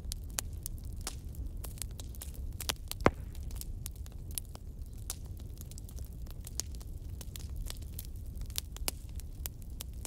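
Wood fire crackling: frequent short pops and snaps from the burning logs over a steady low rumble, with one loud pop about three seconds in.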